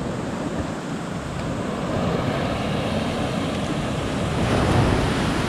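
Surf breaking and washing up a sandy beach, with wind rushing over the microphone. The wash swells louder about four and a half seconds in.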